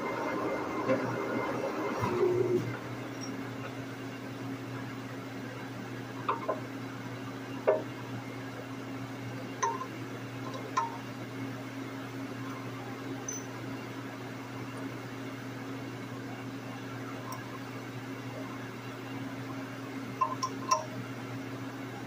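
Lucas horizontal boring mill running with a drill in the spindle, stopping about two and a half seconds in. A steady low machine hum carries on, with a few sharp metallic clinks as drill bits and tools are handled on the steel block.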